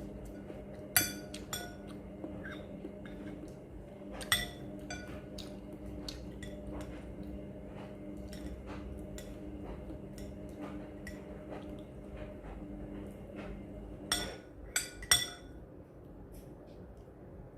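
Eating utensils clinking against a bowl: a few sharp ringing clinks about a second in and around four seconds, lighter taps between, then a quick run of three near the end. A steady low hum sits underneath and fades out about fourteen seconds in.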